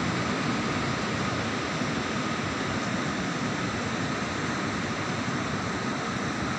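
Heavy rain falling steadily, an even downpour with no break.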